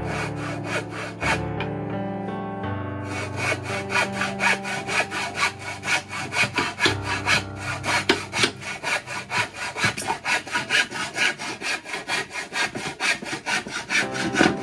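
Handsaw cutting through a 1x2 wooden board with quick, regular back-and-forth strokes, which start about three seconds in, over background music.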